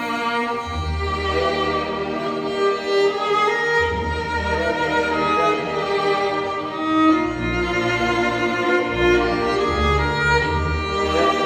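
Church orchestra playing a slow piece, violin and other bowed strings holding sustained notes over low bass notes that change every two or three seconds.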